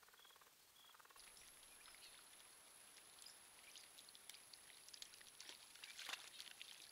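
Faint splashing and dripping of shallow water as wood storks and an egret wade and feed, with a louder splash and wing flap about six seconds in. In the first second, two short regular insect chirps.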